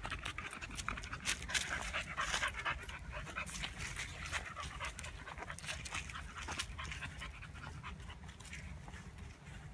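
A brindle boxer dog panting rapidly close by, fading somewhat toward the end.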